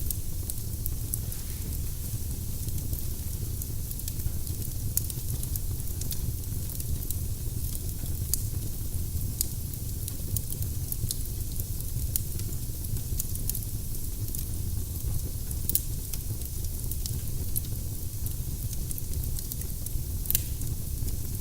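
Firewood burning in a fireplace, crackling steadily with many short, sharp pops and snaps scattered irregularly over a low, even rumble.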